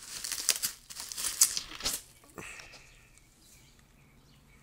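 Plastic bubble wrap being handled and pulled back, crinkling and crackling in a quick run over the first two seconds, then one click about two and a half seconds in before it goes quiet.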